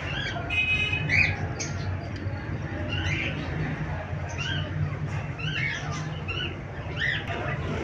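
A flock of budgerigars chirping and squawking in short, overlapping calls, over a steady low hum.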